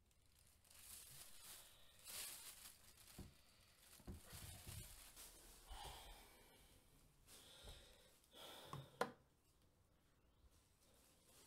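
Quiet room with faint rustling of a plastic bag being handled, then small handling noises and one sharp click about nine seconds in.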